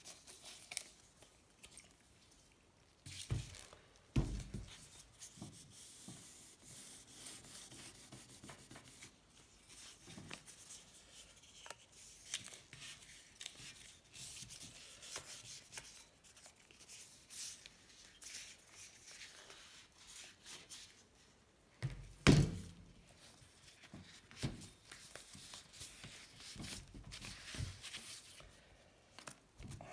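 Hand sanding with fine 2000-grit sandpaper on a steel bicycle frame's paint, a soft irregular rubbing hiss. A few thumps come about three and four seconds in and again past the twenty-second mark, the last the loudest.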